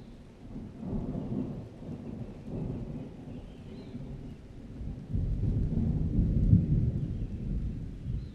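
Rain falling steadily under rolling thunder. The low rumble swells about a second in, again around two and a half seconds, and then grows into a longer, louder roll from about five seconds on.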